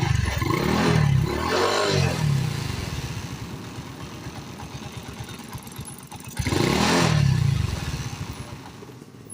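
Honda CD70's small single-cylinder four-stroke engine idling, revved twice with the throttle: once right at the start, rising and falling over about two seconds, and again about six and a half seconds in.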